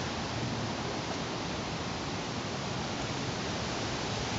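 Steady rushing noise of wind blowing outdoors.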